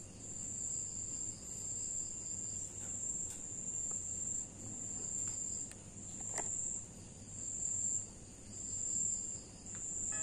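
Crickets trilling in long, high-pitched phrases broken by short pauses, with a few faint clicks as the buttons of a small action camera are pressed.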